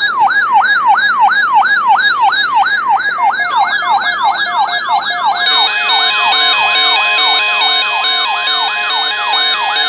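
Electronic emergency alert siren announcing a severe thunderstorm watch: rapid falling sweeps, about three a second. A second overlapping sweep joins a few seconds in, and a layer of steady stepped beeping tones comes in about halfway through.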